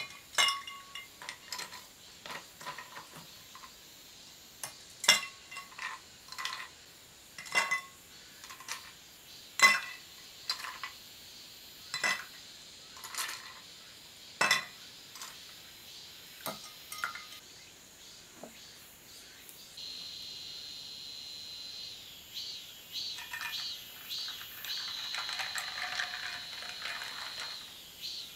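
Ice cubes dropped with metal tongs into glass tumblers, each a sharp glassy clink, many of them spread over the first nineteen seconds. After that a steady fizzing hiss of sparkling water poured over the ice runs on with a few soft ticks.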